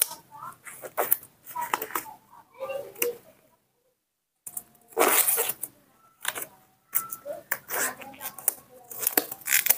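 Thin disposable rubber gloves being pulled and stretched onto the hands: a run of quick rubbery rustles and snaps. The sound drops out completely for about a second just before the middle.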